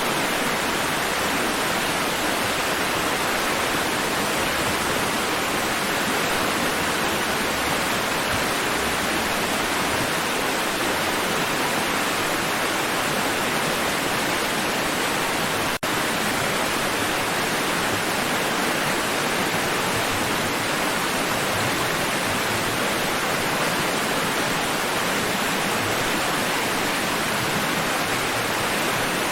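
Steady, unbroken rushing of water, an even noise with no rise and fall of separate waves, broken by a very brief dropout a little past halfway.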